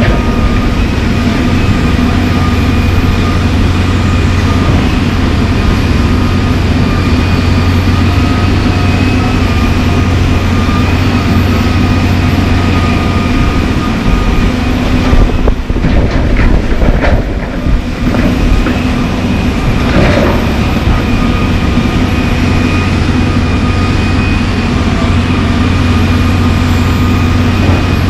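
John Deere 350D LC excavator's diesel engine running steadily under hydraulic load, with a steady high whine over its drone. About halfway through, asphalt chunks clatter and bang for a few seconds as the bucket dumps them into a side-dump trailer, and one more knock follows.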